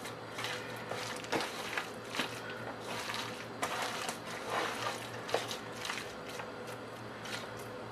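A hand squeezing and mixing sliced onions in thick gram-flour batter in a metal pot: soft, irregular wet squelches and scrapes, over a steady low hum.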